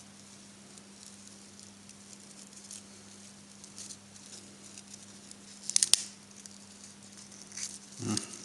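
Faint scraping and handling sounds of hand work on a thick welding earth cable, with one short sharp crack or snip about six seconds in, over a steady low hum.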